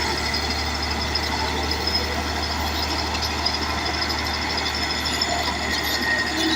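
Caterpillar D8 crawler bulldozer's diesel engine running steadily.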